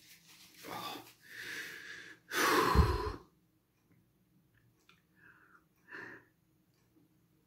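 A man blowing his nose into a tissue, his nose running from very spicy noodles: three blows, the third, about three seconds in, the loudest and longest. A few short puffs of breath follow near the end.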